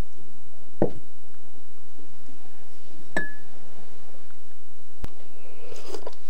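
Glass tea mugs and a glass teapot knocked and set down on a table: a few light knocks, one about three seconds in giving a short ringing glass clink.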